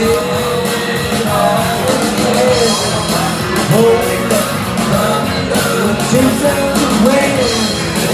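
Rock song playing: a sung vocal line holding long, wavering notes over a full band.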